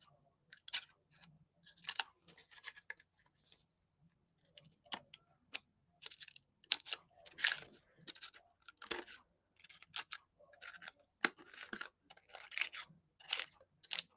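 Faint, irregular crisp snips of a small cutting tool trimming the paper close along the edges of a decoupaged wooden tree cutout.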